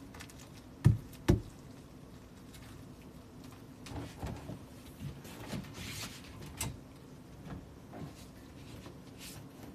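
Two sharp thumps about a second in, a hand pressing a gold foil letter garland back onto the wall, then a few seconds of softer rustling and light knocks as the garland is handled and a desk chair is sat in.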